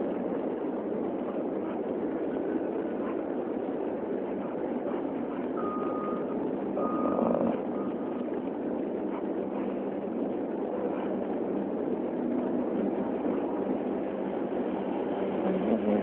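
Steady city street and traffic noise, with a vehicle's backup alarm beeping three times, about once a second, some six seconds in.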